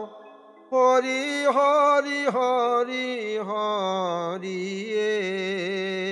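Devotional ghosa-chhanda melody: a single melodic line with gliding ornaments over a steady low drone. It starts after a brief hush at the very beginning.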